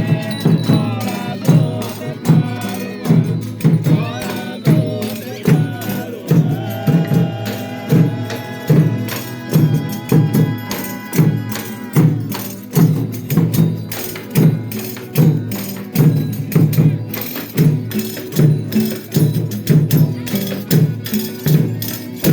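Folia de Reis folk ensemble playing, with a tambourine and a low, steady beat recurring a little more than once a second under held melody notes.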